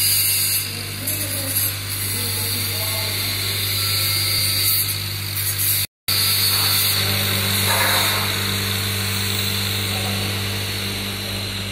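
Stainless-steel industrial drying oven running: its fan motors give a steady hum under a strong airy hiss. The sound breaks off briefly about halfway through.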